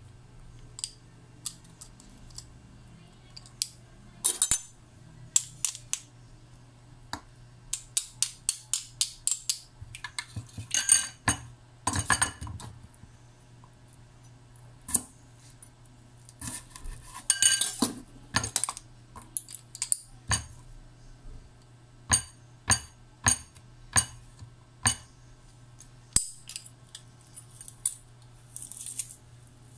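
Metal garlic press and kitchen knife clicking, clinking and scraping as garlic cloves are crushed and the pressed garlic is scraped off. The sharp, irregular clicks come in runs, over a faint steady low hum.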